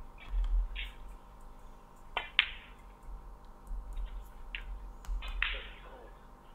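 Snooker cue striking the cue ball, then the cue ball clicking sharply into the pink about two seconds in; the pink is potted.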